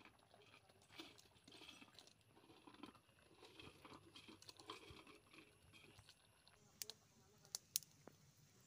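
Faint crunching and rustling of dry Maggi instant noodle cakes being broken up by hand and dropped into a pot, with a few sharp clicks near the end.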